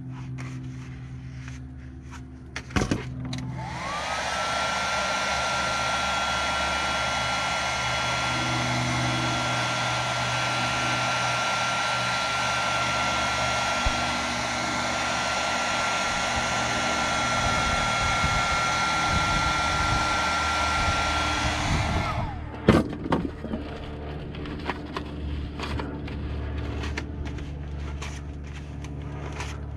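Handheld electric hot-air blower running steadily for about eighteen seconds, a rushing blow of air with a motor whine. The whine rises as it is switched on about four seconds in and falls away as it is switched off near the end, with clicks just before and just after.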